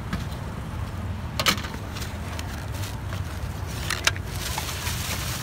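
Metal serving tongs clattering, then a styrofoam takeaway box snapped shut about four seconds in, over a steady low background rumble.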